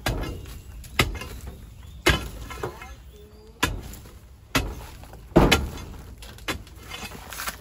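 A wooden stick jabbing into dry, packed earth, about once a second, each blow followed by loose soil crumbling and falling away.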